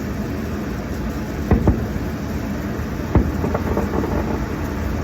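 Distant fireworks going off: a few sharp bangs, two close together about a second and a half in and another about three seconds in, over a steady low rumble.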